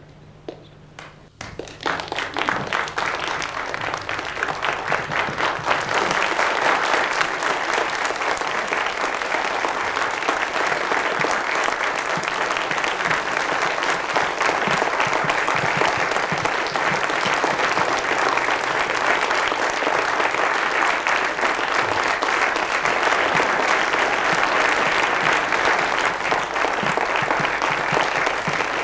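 Audience applauding: the clapping starts suddenly about a second and a half in, swells over the next few seconds and then holds steady.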